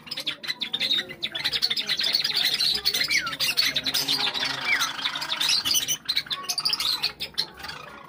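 A flock of Java sparrows chattering: a dense stream of rapid chirps and clicks, with a couple of short falling whistles, thinning out near the end.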